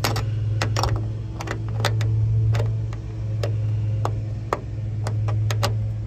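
Scattered light metal clicks and taps from a steel bracket and its hardware being handled and tried against a truck's bed rail, over a steady low hum.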